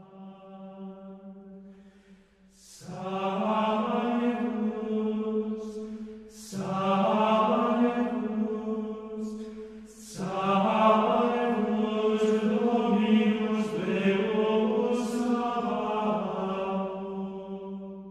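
Slow sung chant in a low voice, with long held notes in four phrases that each start sharply, about 3, 6.5, 10 and 14 seconds in. Brief sung 's' sounds are heard, and the last note fades near the end.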